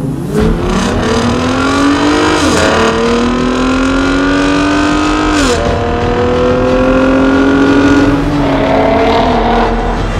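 2022 Ford F-150 Raptor's 3.5-litre twin-turbo EcoBoost V6 with its active 'trombone' exhaust in Baja mode, accelerating hard under manual shifting. The pitch climbs through the gears, drops at two upshifts about two and a half and five and a half seconds in, climbs again, then falls away as the throttle eases near the end. Loud throughout.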